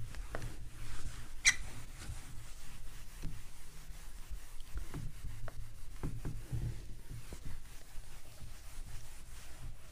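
A bare hand rubbing across a whiteboard, wiping off marker writing in irregular strokes, with a sharper tick about a second and a half in.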